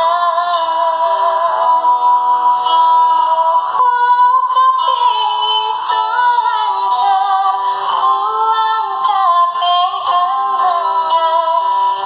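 A woman singing a slow song, her voice wavering on held notes, to acoustic guitar accompaniment.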